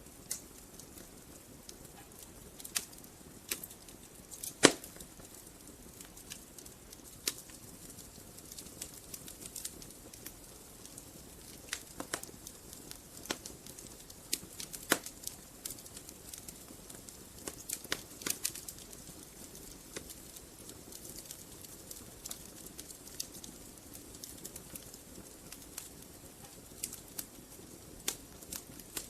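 Wood fire burning in a fireplace: irregular crackles and sharp pops over a soft steady rustle of the flames, with the loudest pop about four and a half seconds in.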